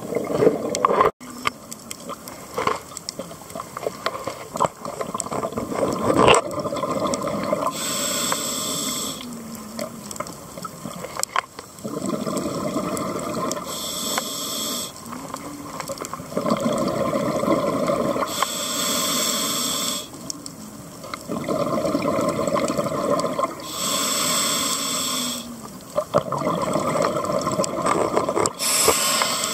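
Scuba diver breathing through a regulator underwater: rhythmic cycles of the demand valve hissing on each inhale and exhaled bubbles rushing out, about one breath every five seconds.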